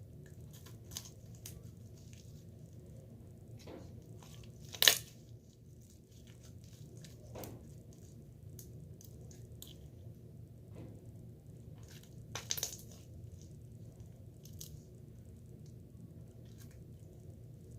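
Scattered small clicks and crinkling handling noises over a steady low hum, with a sharp click about five seconds in and a few more around twelve seconds.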